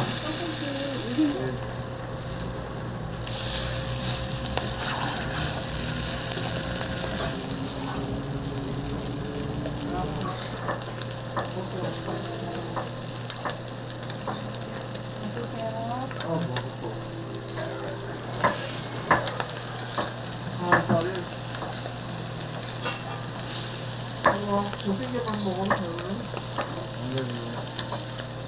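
Food sizzling on a hot street-stall griddle, the hiss loudest in the first second or so, with frequent short clicks and taps of utensils working on the griddle.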